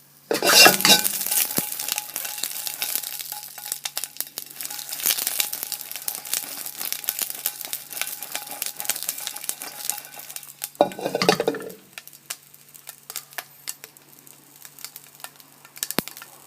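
Whole Padron peppers frying in a hot wok with a little olive oil, sizzling with dense crackles and pops. There is a brief louder burst about eleven seconds in, after which the sizzle thins to sparse crackles.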